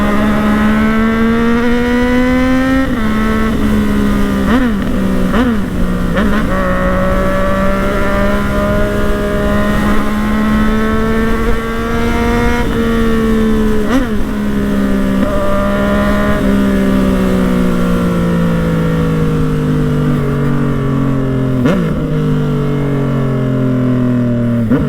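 Yamaha MT-09's three-cylinder engine pulling through the gears while riding. The pitch climbs slowly and drops sharply at each upshift, several times over. In the last third it sinks steadily as the bike slows.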